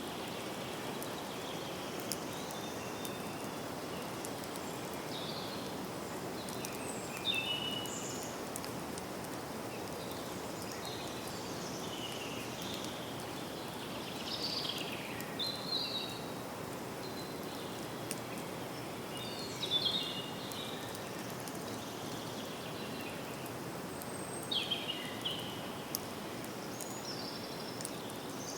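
Forest ambience: a steady, even hiss of background noise with short bird chirps and calls scattered through it, coming in small clusters every few seconds.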